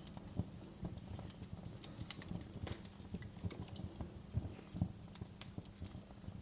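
Ambience of irregular sharp clicks and soft low knocks over a steady low hum, with no clear even rhythm.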